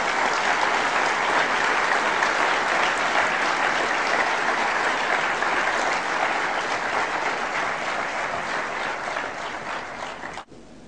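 Audience applauding in a large hall, a dense, steady clapping that eases slightly, then cuts off abruptly near the end.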